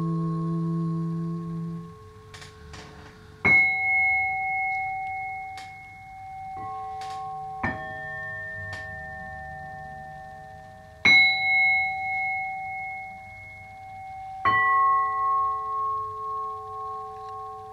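Singing bowls struck one after another, about every three to four seconds. Each strike rings on as a few clear steady tones that waver in loudness as they slowly fade. A low steady drone stops about two seconds in.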